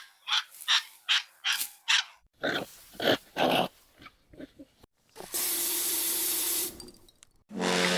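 A dog making a quick run of short, breathy sounds, about three a second, which fade out after a few seconds. A steady hiss follows for about a second and a half.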